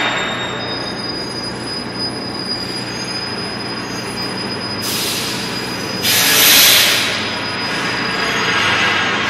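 Doosan forklift running with a steady low engine hum and a thin, high-pitched squeal over it. Two loud bursts of hissing noise break in about five and six seconds in, the second one the loudest.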